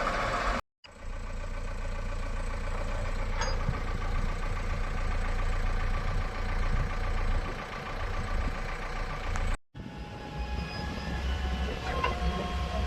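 Diesel engine of a backhoe loader running steadily at work, cutting out briefly twice. A few metallic clanks come near the end.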